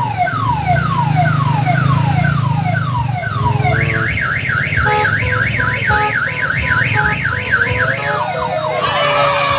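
Electronic multi-tone siren horn of an odong-odong mini tourist train running through its patterns. It starts as a string of falling sweeps about twice a second, changes to a fast up-and-down warble, and switches to a different chirping pattern near the end. The train's engine runs low underneath.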